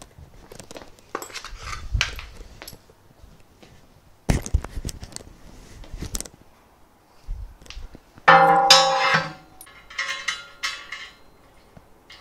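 Hard parts being handled and set down: a series of knocks and clatters, with a loud ringing clank about eight seconds in.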